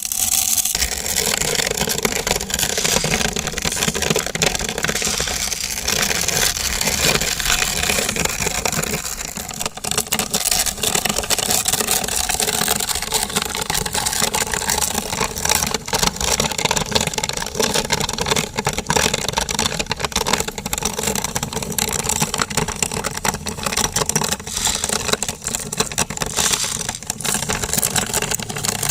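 Electric grinder running without pause on dry macaroni pasta: a steady motor sound mixed with dense crackling as the hard pasta is smashed and ground.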